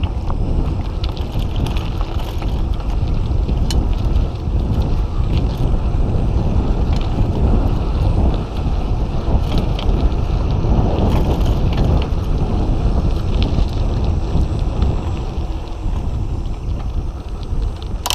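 Wind buffeting the microphone and tyres rumbling over the path as a Trek mountain bike is ridden along, steady throughout, with scattered clicks and rattles from the bike.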